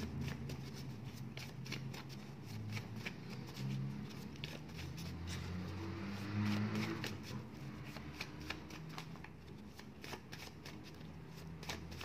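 A deck of small paper word cards being shuffled by hand: a quick, continuous run of card flicks and slides, a little louder about six to seven seconds in.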